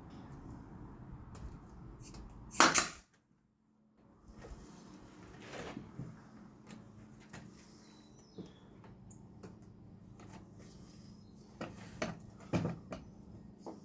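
Wood and tools being handled on a workbench during frame assembly: one loud knock about two and a half seconds in, then scattered lighter knocks and clicks.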